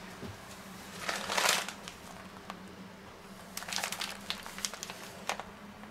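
Faint rustling and crinkling from things being handled at a kitchen counter: a soft rustle about a second in, then a cluster of short crinkly clicks around four seconds, over a faint steady low hum.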